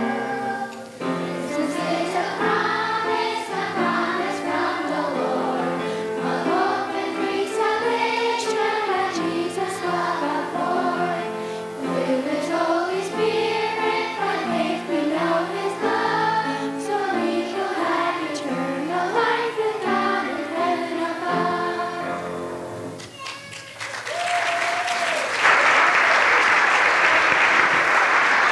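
Children's choir singing a song together. A few seconds before the end the singing stops and the audience breaks into applause.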